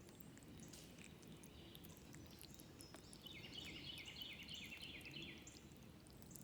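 Faint outdoor ambience with a low steady rumble. About three seconds in, a small bird sings a rapid trill of quickly repeated high notes that lasts about two seconds.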